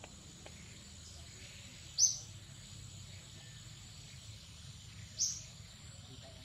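Forest ambience: a steady high-pitched insect drone, with two short, sharp bird chirps about two and five seconds in.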